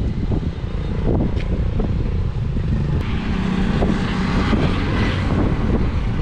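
Strong wind buffeting the microphone, with a motor scooter's engine passing on the road, loudest in the middle and then fading.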